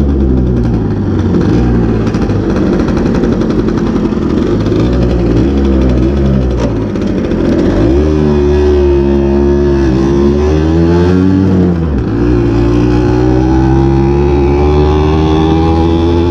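Gitane Testi Grand Prix moped's 50cc Minarelli two-stroke engine running under way, its pitch rising and falling with the throttle. It drops sharply about three-quarters of the way through, then climbs steadily again.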